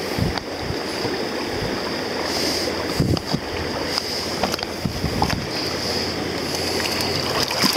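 Steady rushing of a shallow river riffle flowing over rocks, mixed with wind buffeting the microphone, and a few soft knocks scattered through.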